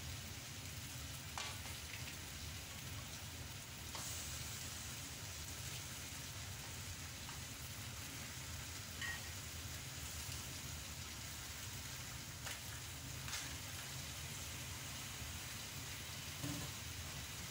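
Wok of seafood and vegetables in coconut milk cooking on a gas stove: a steady hiss, with a few short knocks and clinks as crab pieces are laid in and the glass lid is set on.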